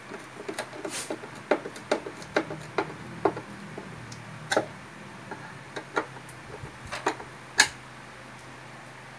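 Hand screwdriver driving wood screws through a loudspeaker driver's frame into a plywood baffle: irregular small clicks and ticks, with one sharper click about seven and a half seconds in.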